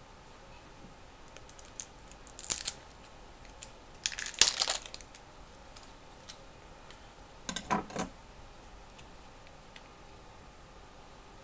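Plastic shrink seal being crinkled and torn off a hot sauce bottle's cap along its perforation, in scattered crackles with a louder rip about four seconds in, then a duller knock a few seconds later.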